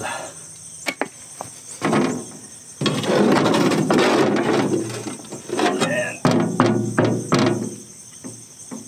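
Heavy steel stump jumper (blade pan) of a rotary mower being handled and slid onto the oiled gearbox spindle: metal scraping on metal, then a run of sharp clanks and knocks. Crickets chirr steadily behind it.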